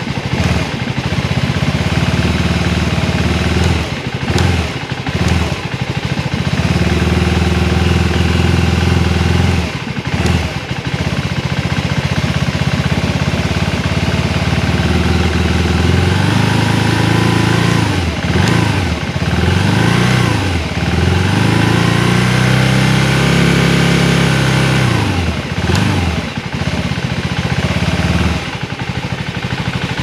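2024 KTM 390 Duke's 399 cc single-cylinder engine running while stationary, idling between throttle blips. A few short revs in the first half, then from about the middle a run of repeated revs rising and falling in quick succession, before it settles back toward idle near the end.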